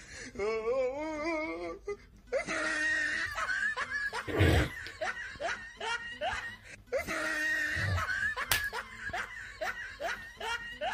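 A person laughing in quick, repeated bursts of giggles and snickers, after a wavering, sing-song vocal sound at the start.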